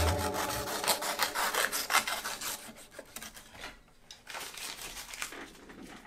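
Snap-off utility knife blade slicing and scraping along a wooden edge as it trims off excess paper lining: a quick run of short rasping strokes that grow fainter toward the end.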